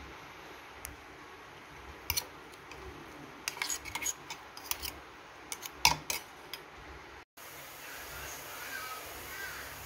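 Steel spoon scraping and clinking inside a stainless-steel mixer-grinder jar: a run of sharp metallic clicks and scrapes, loudest about six seconds in. After a short break, a steady sizzle of cumin seeds frying in hot oil.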